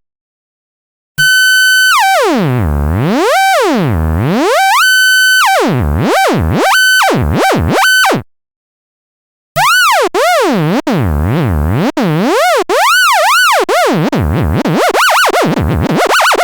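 Synthesized tones made from a traced symbol's outline (a Fourier epicycle sonification), each a rich buzzy pitch sweeping down and up over and over. About a second in, the first tone starts with slow swoops and a few held notes and stops after about seven seconds. After a short gap a second tone starts, its swoops getting faster and faster toward the end.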